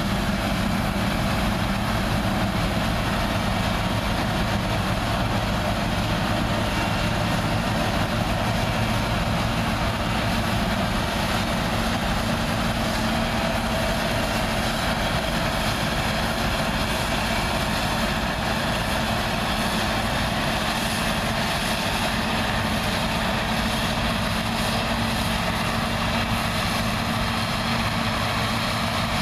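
New Holland TC54 combine harvester at work: its diesel engine and threshing machinery running steadily under load as it cuts the crop, a constant drone with a hiss over it.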